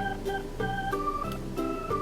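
Background music: a keyboard melody of short held notes over a bass line, with light ticking percussion.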